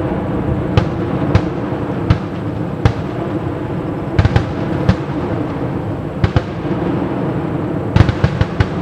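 Fireworks display: distant shell bursts going off at irregular intervals, about a dozen sharp bangs with a quick cluster near the end, over a steady background noise.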